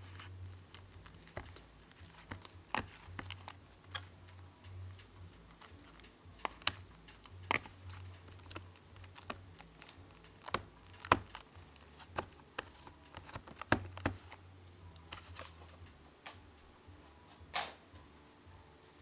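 Irregular small clicks and taps of toys being handled, a few sharper ones standing out, over a faint low hum.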